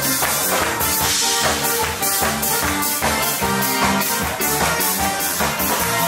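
Lively band dance music with a steady drum-kit beat and tambourine, instrumental with no singing.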